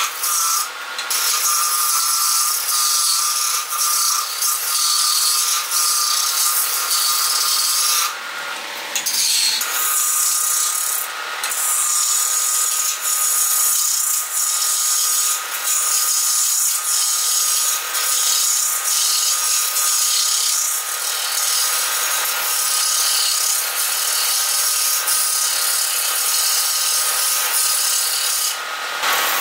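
Hand-held turning tool cutting a spinning wooden blank on a wood lathe: a steady rasping hiss as shavings peel off. The cutting breaks off briefly about eight seconds in and again near the end.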